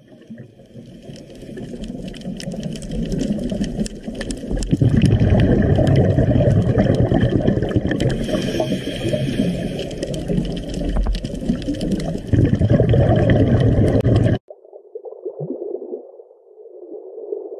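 Underwater ambience sound-effect track: a dense watery wash with many small clicks and a deep rumble. About fourteen seconds in it cuts off abruptly and gives way to a quieter, hollow underwater tone.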